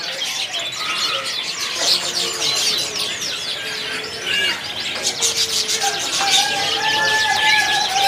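Many caged domestic canaries chirping and twittering together, a dense stream of quick high chirps overlapping one another.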